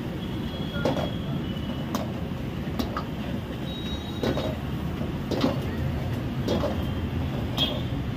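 Metal ladle scraping and clanking against a large wok as food is stir-fried and tossed, about once a second, over a steady low roar.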